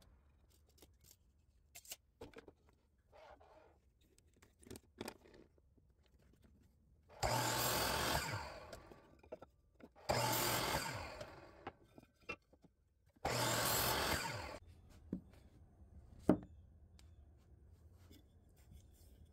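Power saw cutting short lengths of pine cleat stock three times, each cut about a second and a half long, with the motor winding down after each. Light knocks from handling the wood come before and after the cuts.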